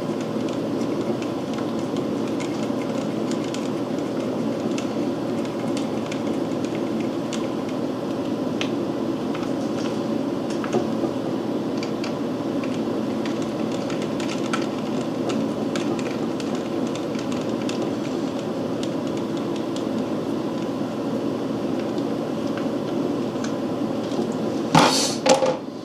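A steady mechanical hum runs throughout. Over it come light metallic clicks of a screwdriver and small parts on an engine's breaker-points plate, and a few louder knocks near the end.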